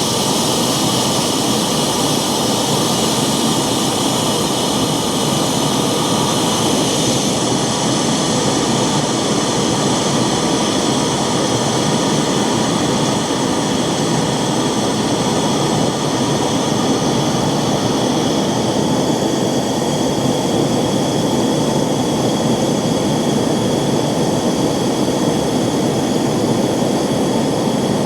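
Alup SCD 30 30 hp variable-speed rotary screw air compressor running steadily on its run-on timer after being told to stop, counting down before shutdown. The high hiss changes slightly about seven seconds in.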